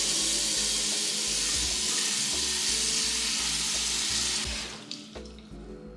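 Kitchen faucet running into a cooking pot, filling it with water; the flow stops about four and a half seconds in. Faint background music with a steady beat underneath.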